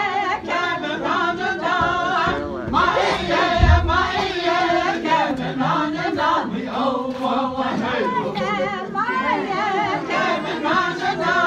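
Several voices singing together unaccompanied in wavering, chant-like lines, with a crowd's voices mixed in: Navajo shoe game (Késhjéé') songs. A single low thump comes about four seconds in.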